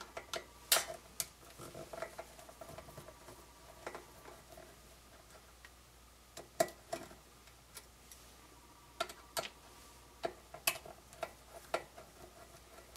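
Screwdriver working a stubborn screw in the metal housing of a dental X-ray head: irregular small metallic clicks and clinks, some coming in quick pairs.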